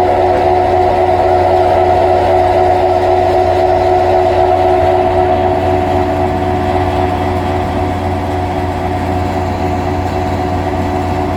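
A large engine of the tree crew's equipment running steadily at idle, a constant hum with a steady whine on top.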